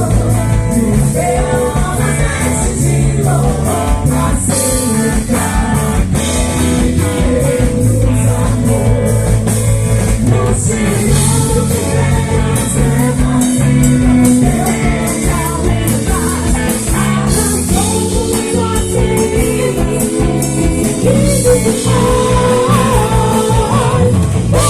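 Live band playing a gospel song with singing, electric guitar, bass and drums, loud and steady with a rock beat.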